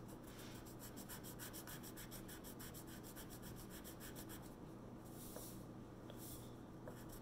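Colored pencil scribbling on paper in quick, even back-and-forth strokes, easing off briefly twice in the second half.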